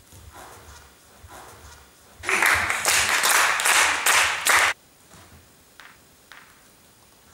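A burst of dense hand clapping starting about two seconds in, lasting a couple of seconds and cutting off suddenly, followed by a few faint taps.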